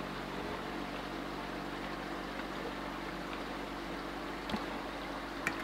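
Creek water flowing steadily, with a low steady hum under it and a couple of faint clicks near the end.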